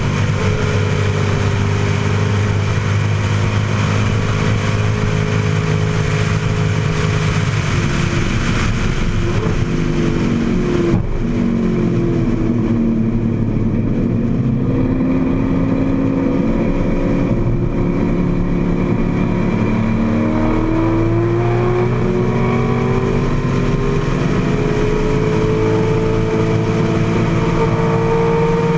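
AC Cobra's Ford V8 at racing speed, heard from its open cockpit with wind rushing past. The engine pitch drops in steps as the car brakes and downshifts about eight to eleven seconds in. From about twenty seconds in the engine climbs in pitch again as the car accelerates hard out of the corner.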